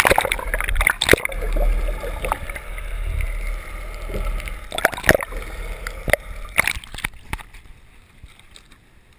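Camera microphone plunged into seawater: a sudden splash as it goes under, muffled underwater gurgling and rumbling for a few seconds, then several sharp splashes as it breaks back through the foamy surface, fading out near the end.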